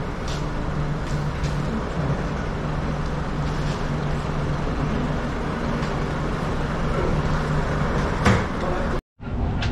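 Steady running noise and low hum of a train heard from inside, with a few light knocks and a sharper knock near the end. The sound cuts out for a moment just after.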